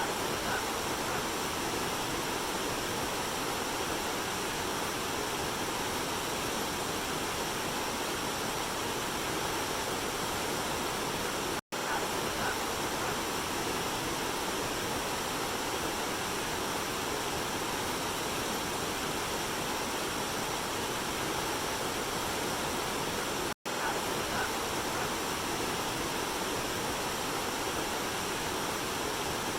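Waterfall and river water rushing in a steady, even hiss. The sound cuts out for a split second twice, about twelve seconds apart, where the recording loops.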